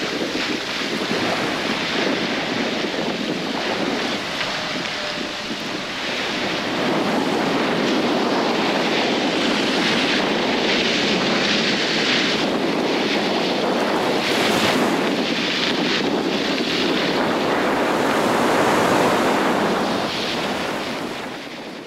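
Steady rush of wind and waves heard from the deck of a sailboat under way under reefed sail, with wind gusting across the microphone and the level swelling and easing.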